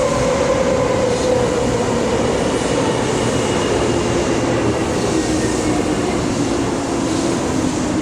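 A 0 Series Shinkansen train running at the platform: a loud, steady rumble with a whine that slowly drops in pitch.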